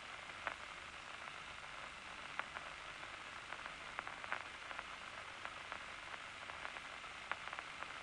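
Steady hiss with a few faint scattered clicks from the loudspeaker of a nerve-impulse audio monitor wired to a locust's nerve cord. The cord is at rest, with no large spikes.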